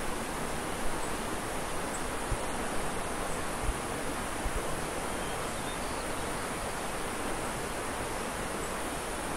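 Snowmelt stream rushing and splashing over boulders as a steady hiss, with a few soft low bumps.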